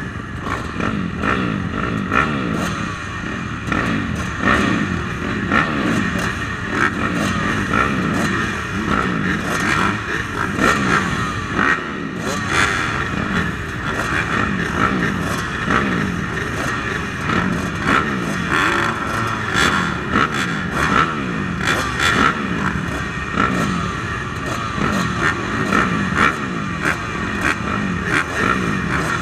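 Motocross dirt bike engines racing on a track, revving up and dropping back over and over, with scattered clatter and knocks.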